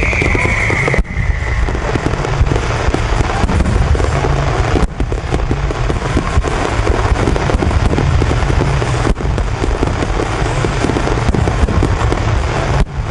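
Dense fireworks barrage: many aerial shells and low wide-spread starmine bursts crackling and booming without a break. A falling whistle fades out about a second and a half in.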